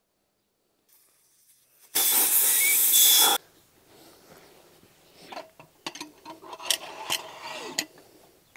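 Air hissing loudly out of a motorcycle tyre's valve for about a second and a half as the tyre is let down, cutting off suddenly. Then light knocks and clicks as the wheel is handled and set onto the tyre-changer stand.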